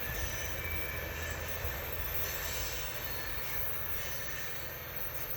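Empty ethanol tank-car train rolling slowly away on the rails, a steady rumble with faint wheel squeal.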